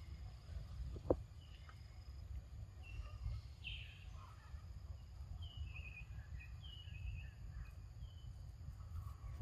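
Outdoor ambience: a steady low rumble with scattered short, high bird chirps through the middle and a single click about a second in.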